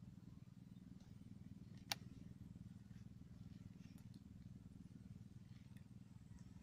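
Faint, steady low hum with a single sharp click about two seconds in.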